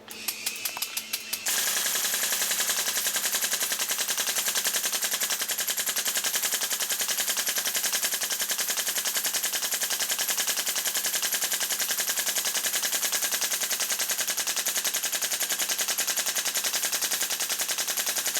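HPA-powered airsoft AR15 pistol firing on full auto, fed by an electric drum magazine: a few quick shots, then about a second and a half in one long unbroken burst of rapid, evenly spaced shots.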